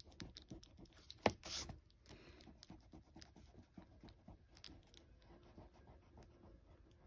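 Plastic eraser rubbing pencil lines off sketchbook paper in quick, faint back-and-forth strokes, with one sharper tap about a second in.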